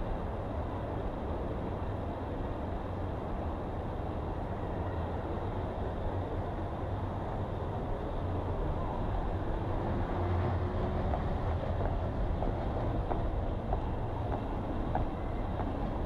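Steady low rumble of outdoor ambience, with a faint rising tone from about halfway through and a few faint ticks near the end.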